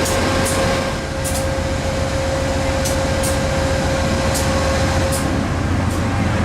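Passenger train running, heard from inside the carriage: a steady low hum and running noise with a thin steady tone that stops about five seconds in, and a few sharp clicks scattered through it.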